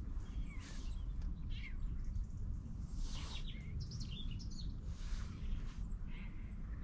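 Birds chirping and calling in short scattered notes, a cluster about halfway through, over a steady low rumble.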